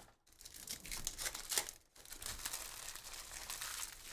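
Foil trading-card pack wrappers crinkling while packs and cards are handled, in irregular crackles with a brief pause about two seconds in.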